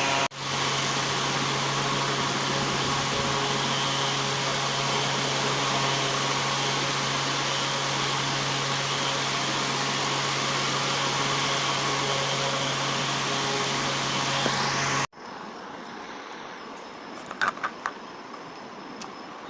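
Electric fan of a homemade plastic-bottle air cooler running steadily, a loud rush of air over a constant low hum. It cuts off suddenly about fifteen seconds in, leaving quieter room noise with a few faint clicks.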